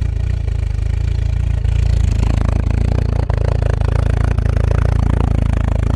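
1986 Volkswagen Cabriolet's four-cylinder engine running shortly after being started, having sat unused for over a month, a little louder from about two seconds in.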